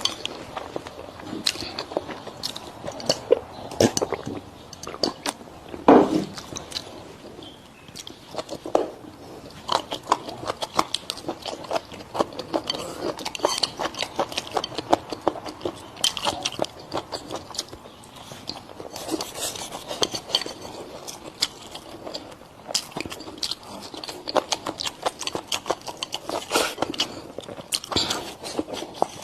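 Close-up chewing and crunching of food: irregular, rapid crunches and wet clicks of a mouth eating, with a louder, lower sound about six seconds in.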